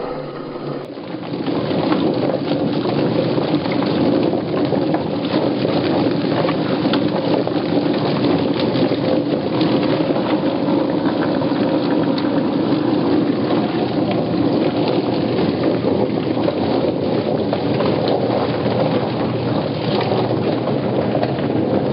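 Poultry plucker running with water spraying, a steady rushing wash full of small slaps and ticks. It sets in about a second in and holds level.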